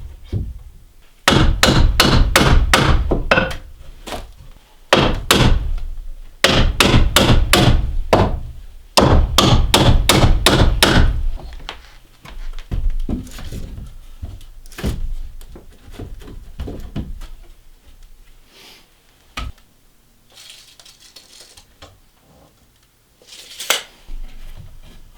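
Hammer blows on wood, in four quick runs of about three strikes a second, followed by scattered lighter knocks and one sharp knock near the end.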